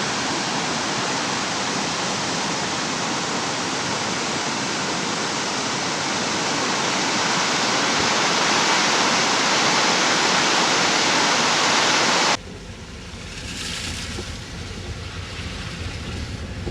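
Water rushing down a rain-swollen ravine in a steady, dense rush. It cuts off abruptly about twelve seconds in, giving way to a quieter low rumble of wind on the microphone.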